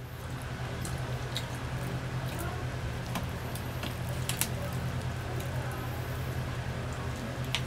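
Fingers tearing apart a whole fried chicken: wet squishing of the meat and crackling of the fried skin, with a few sharp crisp snaps, over a steady low hum.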